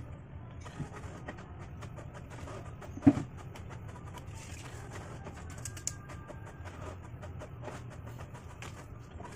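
Hand work on a wooden rack: a plywood panel and a tape measure being handled, with light clicks and taps and one sharp knock about three seconds in, over a steady low background rumble.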